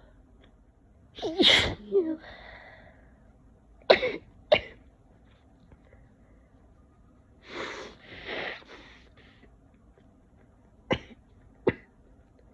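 A person with a cold sneezing: a loud sneeze about a second in, followed by shorter, sharp sneezy sounds twice around four seconds and twice near eleven seconds, with a breathy, noisy stretch near eight seconds.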